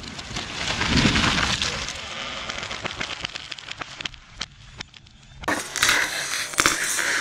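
A large dead ash tree coming down: a heavy thud about a second in, then wood cracking and debris crackling down, fading away. A different, louder rustling noise starts abruptly near the end.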